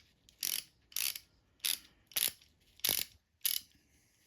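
Craftsman 3/8-inch drive hand ratchet clicking as its handle is swung back and forth in six short strokes about half a second apart: the freshly rebuilt pawl mechanism catching and ratcheting properly again.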